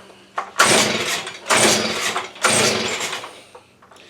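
Three pulls on the recoil starter of a Stihl BG85 two-stroke leaf blower, choked and primed, each cranking the engine briefly without it settling into running.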